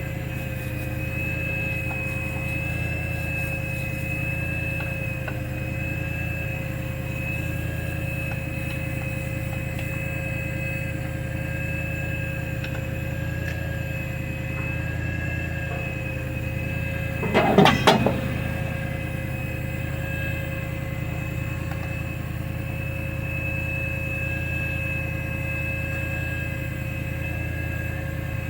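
Steady machine drone with a few constant whining tones over it, like an engine or compressor running. A little past halfway comes one short, loud rattling burst lasting under a second.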